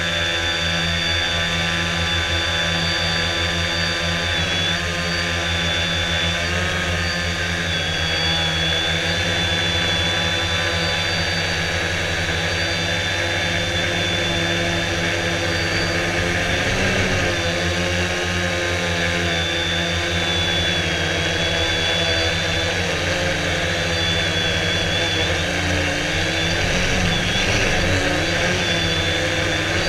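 Electric motor and propeller of a Quanum Venture RC plane, heard from a camera on board: a steady hum with a high whine above it. The pitch wavers briefly about halfway and again in the last few seconds.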